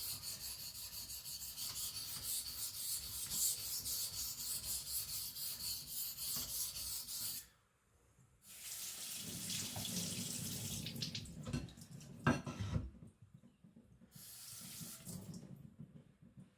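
75Cr1 carbon-steel knife blade stroked rapidly back and forth on a wet whetstone, a quick rhythmic scraping for about seven seconds, then stopping. Shorter stretches of wet rubbing and water sounds follow, with a couple of sharp clicks in between.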